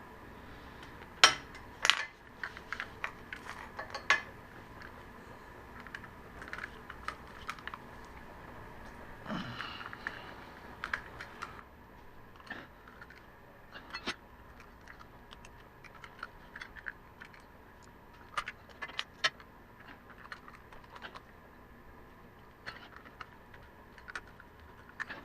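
Scattered light metallic clicks and clinks of a 6 mm Allen key working the front fork pinch bolts of a 2007 Yamaha R6, with two sharper clinks about a second and two seconds in.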